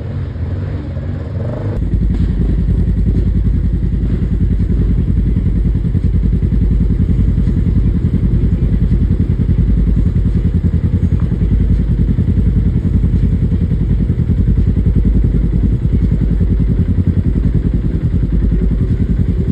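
Off-road vehicle engine running steadily without revving, a loud, even low sound that steps up in level about two seconds in.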